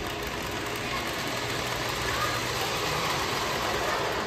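Lionel O-gauge model train running in reverse around the layout: a steady whir of its motor and wheels on the rails, a little louder in the second half.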